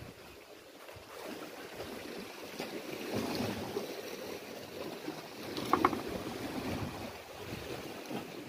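Sea waves washing against a rocky shore, swelling and fading, with wind on the microphone. A pair of short sharp clicks nearly six seconds in.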